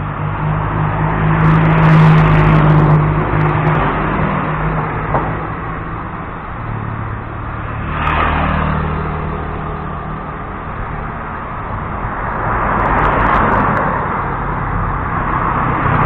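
Motor vehicles on the road close by: a steady low engine hum with tyre and engine noise swelling and fading as vehicles pass, about two, eight and thirteen seconds in.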